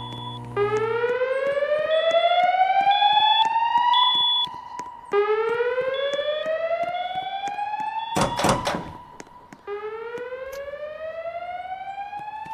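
Fire alarm voice-evacuation speakers (Wheelock E-50 wall and E-60 ceiling speaker-strobes) sounding the slow whoop alert tone between evacuation messages: three loud rising sweeps, each climbing for about three and a half seconds. A brief burst of noise cuts across the tone about two-thirds of the way through.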